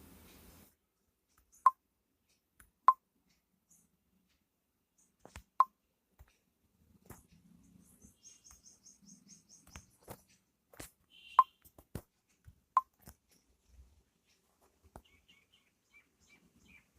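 Five short, loud plops, each dropping quickly in pitch, spaced irregularly, with faint clicks and a quick run of high ticks between them.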